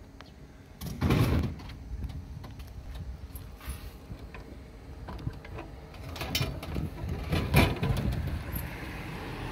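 Drink vending machine dispensing a plastic bottle: a loud thud about a second in as the bottle drops into the tray. From about six seconds in come clacks and rattles of the plastic retrieval flap as it is pushed open and the bottle is taken out, loudest near the end.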